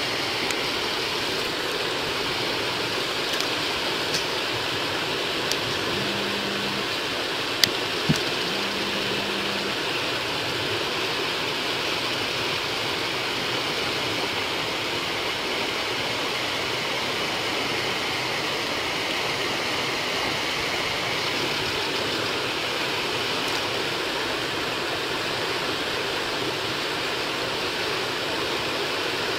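Steady rushing of flowing water, with a couple of faint clicks about eight seconds in.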